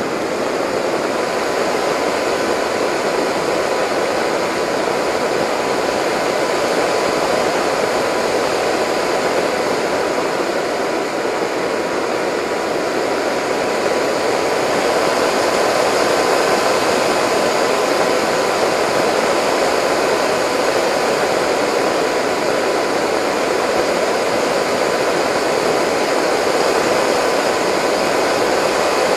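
Steady rush of airflow and propeller-motor drone picked up by the onboard camera of a Delta Speed XS RC flying wing in flight, with a faint steady whine and a slight swell in level about halfway through.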